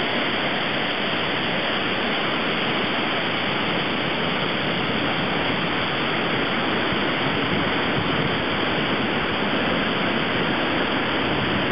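The Secchia river in flood, rushing through the regulator weir of its flood-expansion basins: a steady, loud rush of turbulent water with no let-up.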